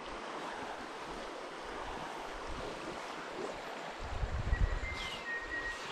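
Shallow river running over a stony bed: a steady rush of moving water. About two-thirds of the way through, wind starts buffeting the microphone.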